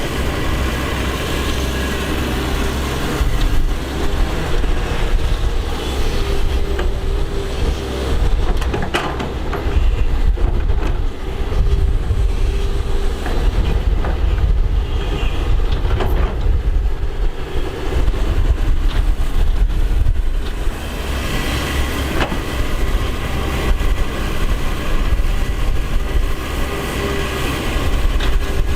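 Excavator's diesel engine running steadily under load, a deep rumble, with a few sharp knocks from the machine working.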